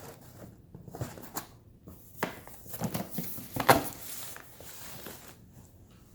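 Small jars of pigment powder and their packing being handled: scattered clicks and knocks with light rustling, the sharpest knock about three and a half seconds in.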